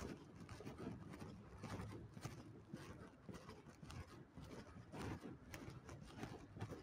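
Faint footsteps of someone walking on pavement, a step every half second or so, over a low steady background rumble.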